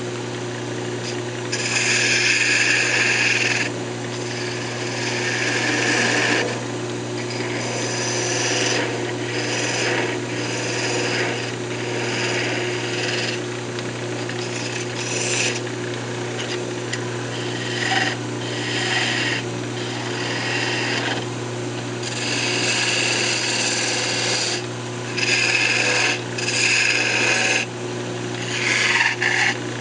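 A hand-held turning tool cutting a spinning cocobolo blank on a wood lathe: repeated short scraping passes, each one to two seconds, over a steady hum.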